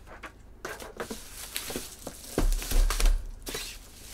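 Bubble wrap crinkling and crackling as a bubble-wrapped shoe box is handled, with a few dull thumps a little past the middle.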